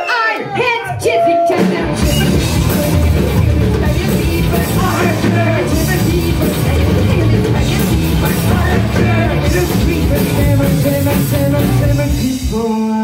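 Live rock band playing loud, with drums, guitar and a singer. The full band comes in about two seconds in and stops just before the end.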